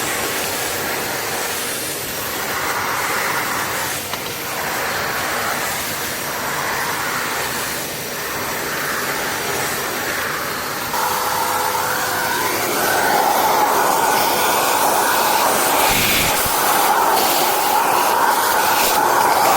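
Kärcher WD 4 S wet/dry vacuum cleaner running with a steady rushing of air; about eleven seconds in the rush grows louder and changes tone.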